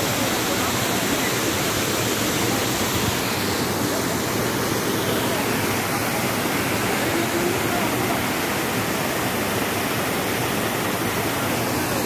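A waterfall pouring over a rock ledge into a pool, making a steady, unbroken rushing.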